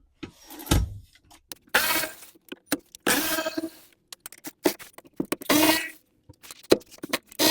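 Hand tools and metal and plastic parts being worked while the steering column support comes out of a BMW E30 dashboard: a series of rasping bursts and sharp clicks, with a low thump about a second in.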